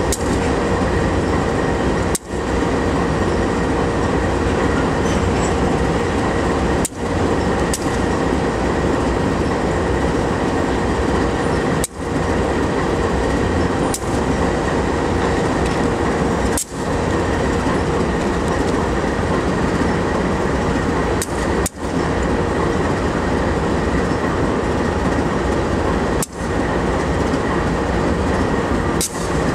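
CSX freight train rolling past: the steady rumble and rattle of its railcars on the track. The sound cuts out for an instant about every five seconds.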